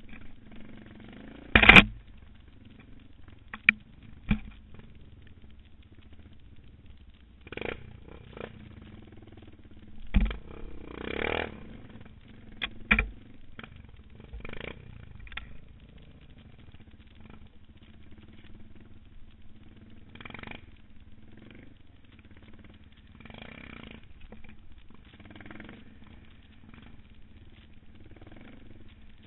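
Suzuki DR650 dual-sport motorcycle running on a muddy trail, its engine a steady low drone under frequent knocks and clatter. Sharp loud bangs come about two seconds in and again around ten to thirteen seconds in.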